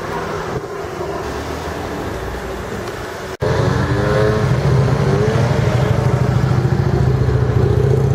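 Vehicle engines in street traffic: a moderate engine hum, then, after a cut about three and a half seconds in, a louder, steady engine note with a brief rising rev just after the cut.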